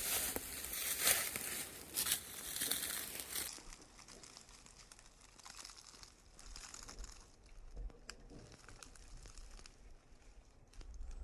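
Dry leaves and undergrowth rustling and crinkling with many sharp crackles, loud for the first three seconds or so, then fainter with scattered crackles.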